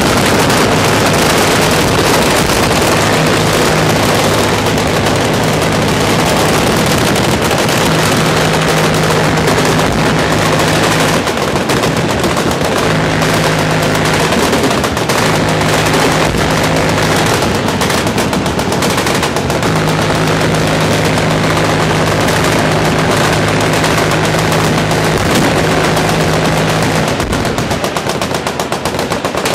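Massed automatic fire from many machine guns firing at once along a firing line, a dense, unbroken rattle of overlapping bursts.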